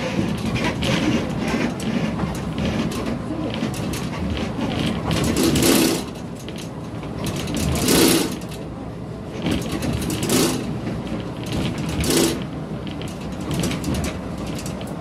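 Cab noise of a large vehicle driving: engine running with a steady mechanical rattle and clatter, and four louder bursts of noise.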